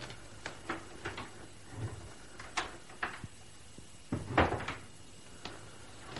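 Radio-drama sound effects of someone crossing a room and checking a door: a string of light knocks like footsteps, then a door being worked about four seconds in, the loudest sound, followed by a few more knocks.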